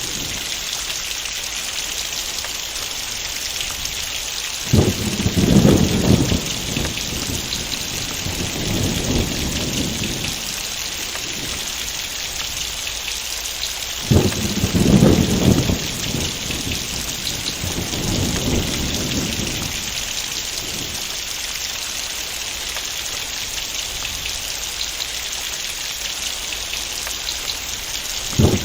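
Heavy rain falling in a steady hiss. Twice, about five seconds in and again about fourteen seconds in, a thunderclap breaks in sharply and rolls off in a low rumble over several seconds. Another clap begins right at the end.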